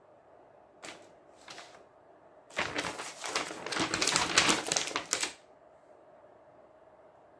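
Paper sheet being handled: two short rustles about a second in, then a longer bout of rapid, crackly crinkling for about three seconds.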